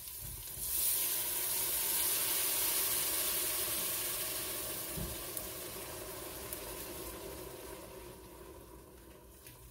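Beer poured into a hot pan of browned bacon, onion and garlic: a sudden loud sizzle and hiss of steam about a second in that slowly dies away as the liquid deglazes the pan.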